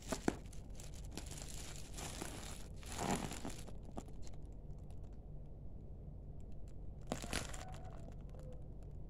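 Black plastic courier bag crinkling as it is handled and turned over, in a long spell over the first three and a half seconds and a brief one about seven seconds in, with a faint steady hum underneath.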